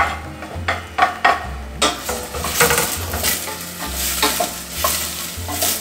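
Chopped onion sizzling in hot oil in a stainless steel saucepan, stirred with a wooden spoon in short repeated strokes that scrape against the pan. The sizzle becomes louder about two seconds in.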